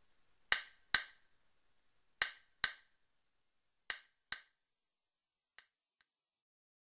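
The ticking noise the chant is set to, running on alone: pairs of sharp dry ticks about 0.4 s apart, one pair every second and a half or so. The ticks grow fainter and die away after the fourth pair.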